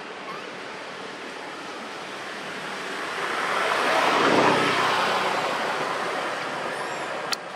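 A vehicle passing by: a steady rushing noise that swells to a peak about four seconds in and then fades away. A single sharp click comes near the end.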